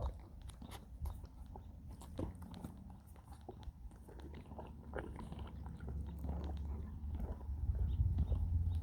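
An animal licking and chewing: irregular small wet clicks. A low rumble grows louder over the last few seconds.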